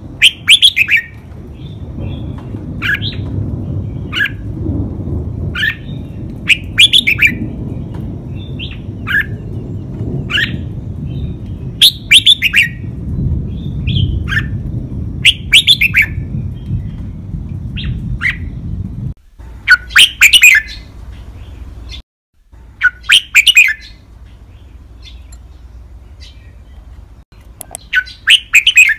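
Caged red-whiskered bulbul singing its five-syllable song, short loud phrases repeated every one to three seconds. A low rumble lies beneath the song and stops after about 19 seconds.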